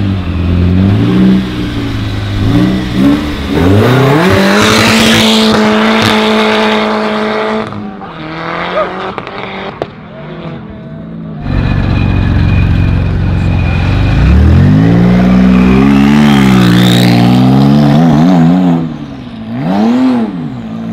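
Sports car engines revving and accelerating hard away in turn. A Donkervoort D8's engine blips a few times, then pulls away with a long rising rev. Later a Porsche 911 gives a long, loud rising pull and ends with a short rev blip.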